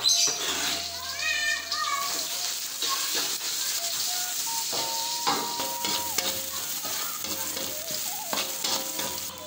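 Chopped garlic frying in hot oil in a wok, a steady sizzle that starts with a loud burst as the pieces go in. A metal spatula stirs and scrapes them against the pan.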